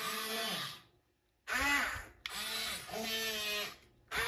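Small electric motors of a 1:24 scale Diecast Masters RC Cat 336 excavator whining as the boom, arm and bucket are worked from the remote. The whine starts and stops in several runs with short pauses, its pitch rising as each run starts.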